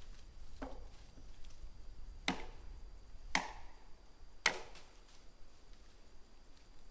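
Knocks: one soft blow, then three sharp, evenly spaced strikes about a second apart, each with a short ring after it.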